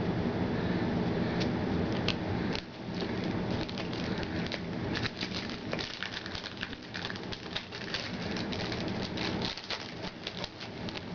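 Baseball trading cards being handled and flipped through, with a quick run of light clicks and snaps that is busiest from about five seconds in, over a steady low hum.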